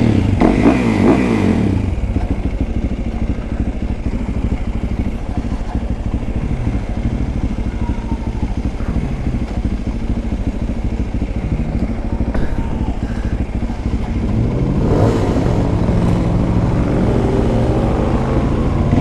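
Dirt bike engine running under way, revving up near the start, then holding a fairly steady pace, with the revs climbing again near the end.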